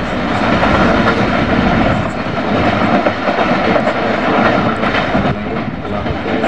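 Freight train of covered wagons and containers rolling away along the track, its wheels clattering steadily over the rails.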